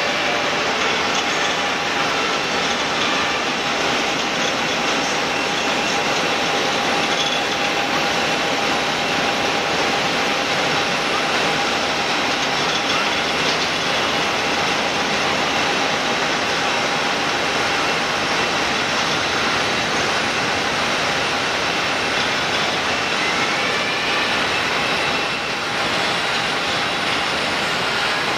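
Airbus A320-216's CFM56 jet engines during landing: a loud, steady jet noise with a thin whine through the flare, touchdown and rollout.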